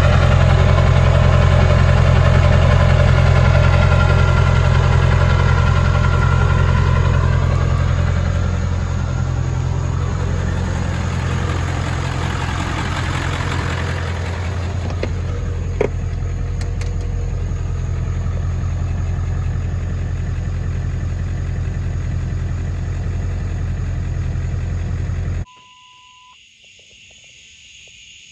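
Ford 7.3 L Power Stroke turbo-diesel V8 idling steadily, loudest for the first several seconds. Near the end the engine sound cuts off suddenly, followed by a short single-tone beep.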